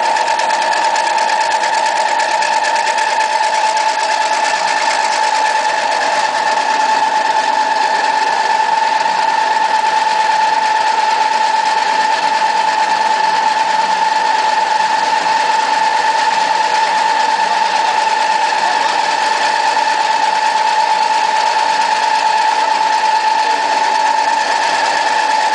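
Animal-feed pellet mill running steadily while it presses out pellets: a continuous mechanical whir with a steady high whine.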